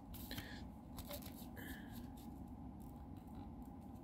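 Faint handling of a DVD case and its disc: a few light clicks and two brief soft rustles over a low steady background hum.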